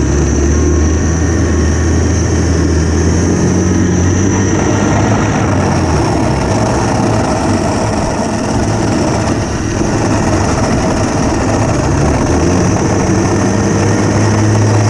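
Home-built electric snowmobile with an ME1115 motor running across snow: a steady running noise from the track and drivetrain with a thin high whine. The low hum shifts in pitch about six seconds in and again near the end.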